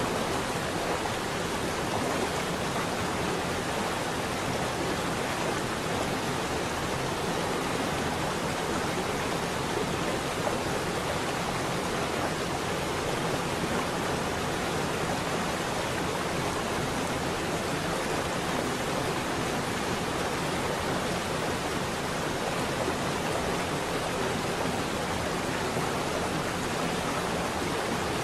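A steady, even rushing noise, like pink noise, with no tune, beat or change in level. It is the audio bed of a subliminal track.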